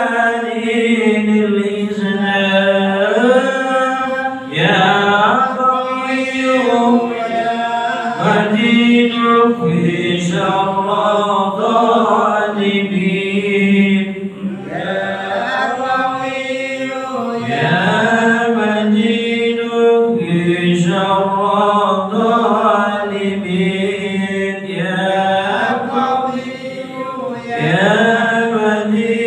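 Unaccompanied melodic Islamic devotional chanting (dhikr), sung in long phrases that rise and fall in pitch.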